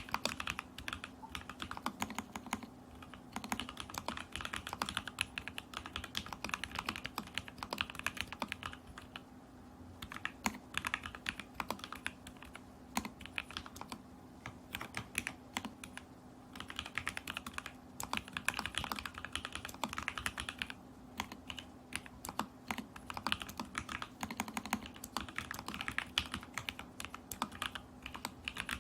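Typing on an Alice-layout mechanical keyboard in a stacked acrylic case with lubed and filmed Lavender switches, stack-mounted with a tape mod and Polycaps stabilisers: fast runs of keystrokes in bursts, with a few short pauses. A faint steady hum sits underneath.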